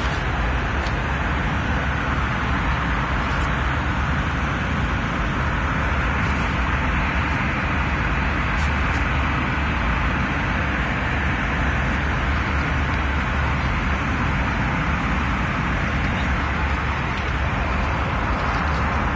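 Airbus A321 passenger cabin noise: a steady rush of air over a low rumble, unchanging throughout.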